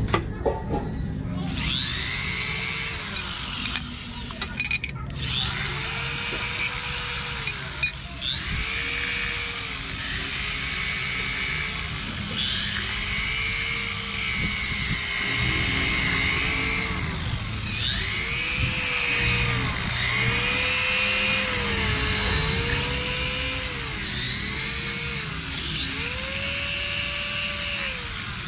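Corded electric drill driving a small wire wheel brush against the metal end cover of a fan motor, scrubbing off dirt and corrosion. The drill's whine rises and dips every second or two as it spins up and bogs against the metal, over the steady scratch of the wire bristles, with a couple of brief stops in the first few seconds.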